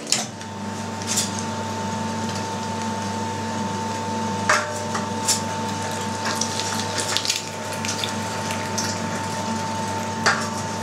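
Electric meat grinder starting up just after the start and then running with a steady hum and whine as it grinds salted pork and beef through a fine 2 mm plate. Sharp metal clinks from the feed tray stand out above the hum, the loudest about 4.5 and 10 seconds in.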